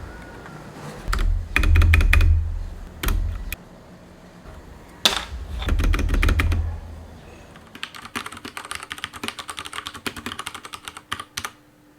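Typing on an Akko 3087 mechanical keyboard with tactile Cherry MX Brown switches: clusters of keystrokes with deep low thumps in two spells, then a quick, even run of key clacks over the last four seconds.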